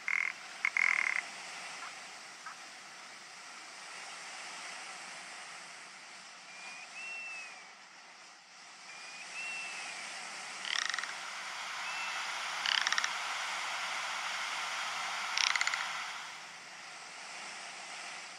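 Male rock ptarmigan calling with short, dry, rattling croaks, three of them in the second half, plus a short louder call near the start. A few brief rising-and-falling chirps come in between, over a steady background hiss.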